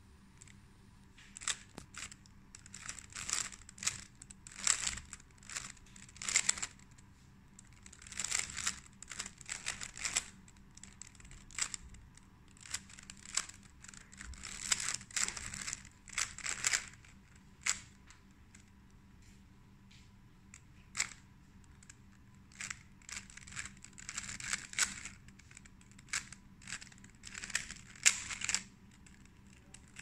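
A 3x3 Rubik's cube being turned by hand: quick runs of plastic clicking and scraping as its layers rotate, coming in bursts with short pauses between.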